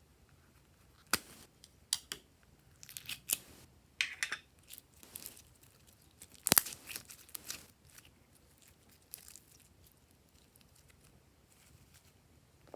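Glossy slime being squished, stretched and folded by hand, giving off irregular sharp pops and crackles. The loudest pop comes about six and a half seconds in, and the last few seconds are quieter.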